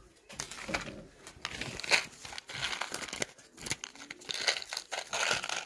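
Sheets of paper crinkling and rustling in irregular bursts, with sharp crackles, as hands handle a folded paper package.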